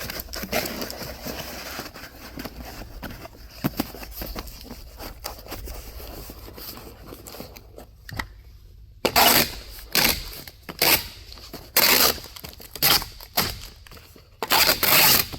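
Packing being handled and rustled. Then, from about nine seconds in, a run of loud ripping strokes, about one a second, as packing tape is pulled off the roll to seal a cardboard shipping box.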